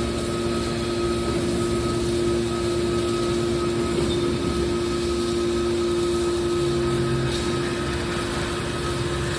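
Hydraulic scrap metal baler's power unit running steadily: a constant machine hum with a steady higher whine over a noisy bed.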